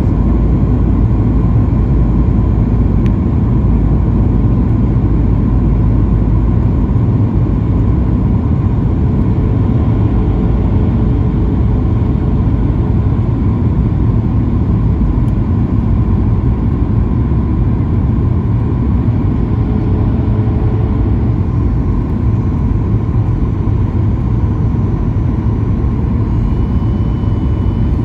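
Steady cabin roar inside a Boeing 737 MAX 9 descending on approach to land, from airflow and its CFM LEAP-1B turbofan engines. The noise is heavy in the low end, with a faint steady hum over it.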